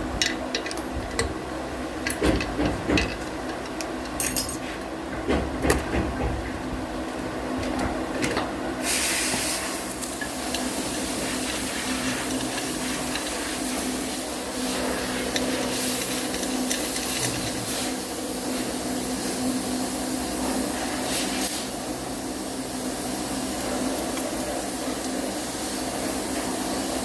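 Factory workshop noise: a steady machine hum with scattered sharp knocks, then a continuous hiss that starts about nine seconds in and runs on.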